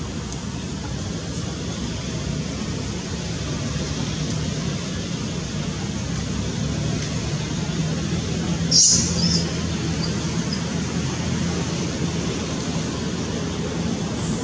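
Steady rushing outdoor background noise with a faint low hum, broken once just under nine seconds in by a short, sharp, high-pitched squeak.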